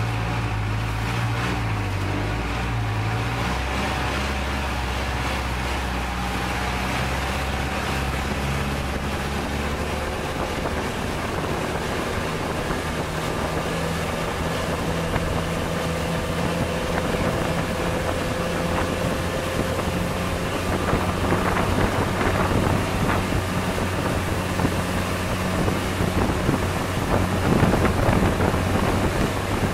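Long-tail boat's engine running steadily under way, with water rushing past the hull and wind on the microphone. The engine note changes pitch a few times, and the wind buffeting and splashing grow louder in the second half.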